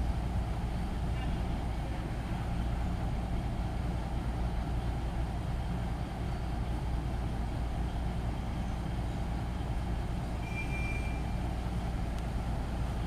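Diesel railcar's engine idling steadily at a low, even hum while it stands at the platform. A brief high tone sounds once, about ten seconds in.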